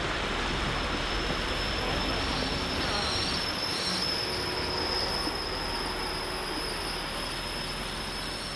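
Large coach driving past close by and pulling away on a wet street: a steady hiss of tyres and engine with a steady high whine over it, easing off slightly near the end.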